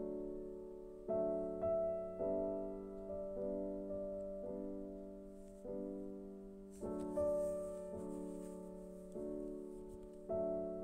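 Slow, soft piano music: chords struck about once a second, each left to ring and fade.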